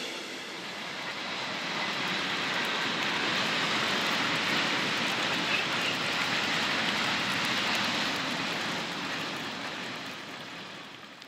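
Train running along the line: a steady rushing noise that fades away near the end.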